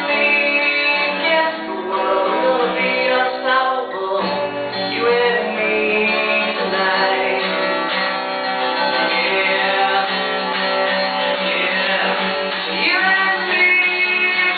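A man singing a song to his own acoustic guitar accompaniment.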